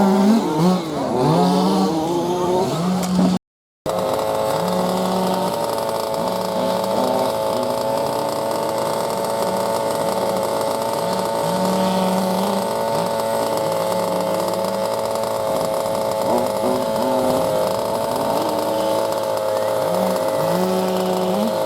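Small model engine revving up and down, then, after a brief cut, running steadily at a high pitch with short, repeated lower notes under it.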